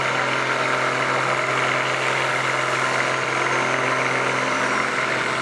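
Hanomag Robust 901 tractor's diesel engine running at steady, unchanging revs under load while pulling a tractor-pull brake sled.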